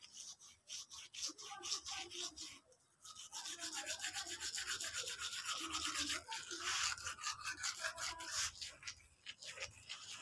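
Manual toothbrush scrubbing teeth in quick back-and-forth strokes, with a short pause about three seconds in, then denser, steadier strokes.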